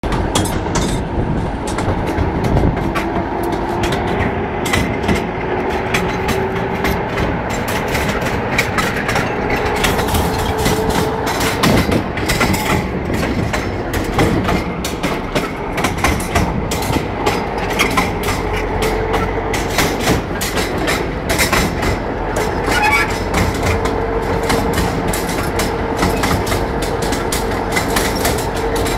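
Rail draisine running along the track: wheels clacking over rail joints in many sharp clicks over a steady rumble, with a drawn-out tone that slowly rises in pitch.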